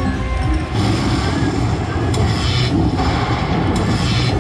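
Video slot machine playing its bonus-tally sound effects: a deep, steady rumble with a few sharp crackles as lightning strikes count up the coin wins.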